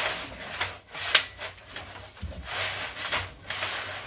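Scraping and rubbing of a sewer camera's push cable being fed down a clay drain line, in uneven strokes with a sharp click about a second in.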